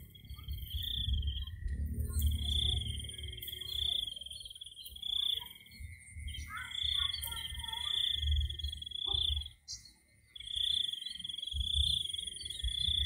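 Insects trilling in long, even phrases of about two seconds with short breaks between them: a high, thin trill over a fainter, lower one. A low rumble rises and falls underneath.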